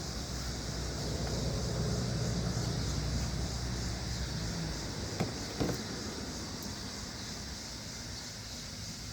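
A car passing on the road: its engine and tyre noise swell over the first few seconds and then fade away. A couple of light clicks come about five seconds in.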